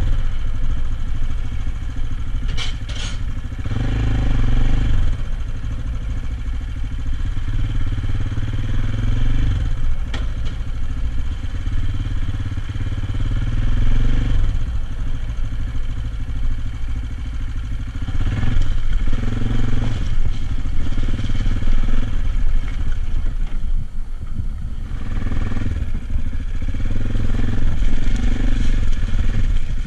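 AJP PR7's single-cylinder engine running as the motorcycle rides along a railway bridge, its note rising and easing with the throttle, with some clatter from the bike. A brief high squeak comes about three seconds in.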